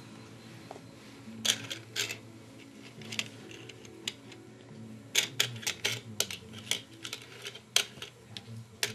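Plastic camera lens cap clicking and clattering on a vinyl floor as a cat paws and chews it: sharp irregular clicks, a few in the first half and a quick run of them in the second half.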